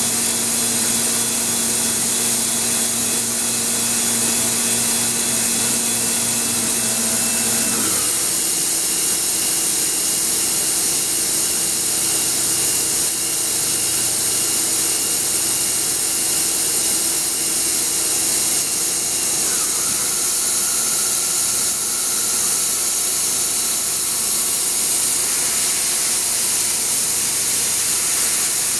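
Star SA-16R Swiss-type sliding-headstock CNC lathe running, a steady machine whine over a high hiss. The tones shift abruptly about eight seconds in, and a higher rising tone joins around twenty seconds in.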